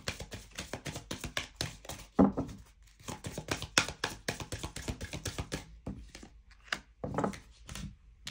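Oracle cards being handled and laid down on a table: a run of quick clicks and taps with a few louder knocks.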